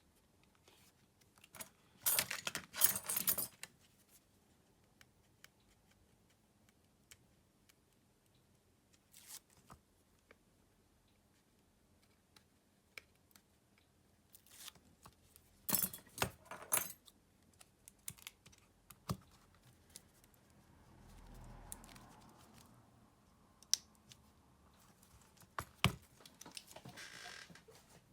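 Clicks, taps and light rattles of small hand tools and plastic phone parts being handled during smartphone repair, coming in short clusters about two, sixteen and twenty-six seconds in, with scattered single clicks between.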